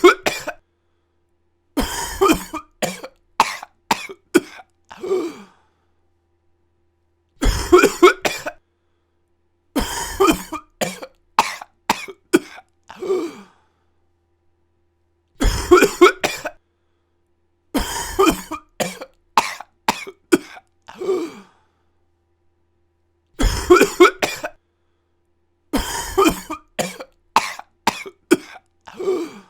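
A person coughing in repeated fits: a short, hard burst of a few coughs, then a longer run of smaller coughs that trails off. Complete silence falls between fits, and the same pattern comes round about every eight seconds.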